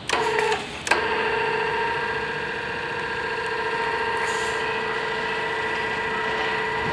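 Crash barrier gate actuator starting with a click, cutting out briefly, then starting again about a second in and running with a steady whine as it swings the steel gate arm up.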